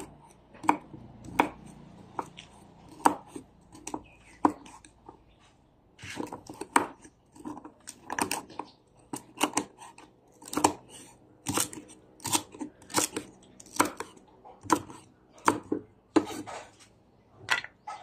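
A large kitchen knife chopping coriander root on a round wooden chopping block: sharp, irregular knocks, about one or two a second, with a short pause about five seconds in.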